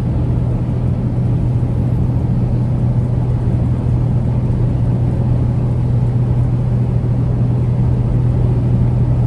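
Kenworth T880 truck cruising at a steady speed, heard inside the cab: an even, low engine and road drone with a constant deep hum.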